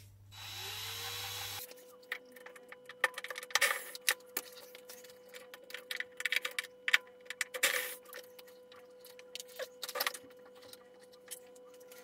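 A cordless drill-driver with a long extension bit runs briefly, for about a second and a half, driving a screw inside a washing machine cabinet. Then scattered clicks and knocks of hand work on the machine's parts and fittings.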